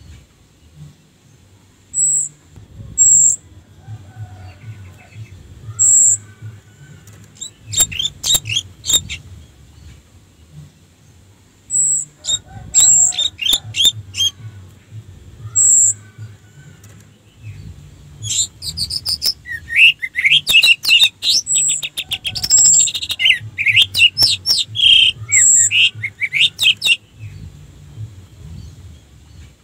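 Orange-headed thrush singing in bursts. Short, very high sharp notes alternate with quick chattering runs, and a long, varied warbling phrase fills much of the second half.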